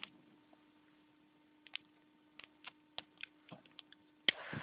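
Bonfire crackling, with scattered sharp pops over a steady low hum; near the end a louder rushing noise comes in.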